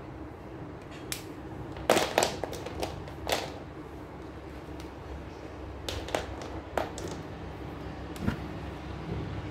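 Short clicks and light knocks of felt-tip marker pens being handled on a tabletop: caps snapped on and off, pens set down and picked up. The loudest cluster comes about two seconds in, with more around six to seven seconds, over a steady low hum.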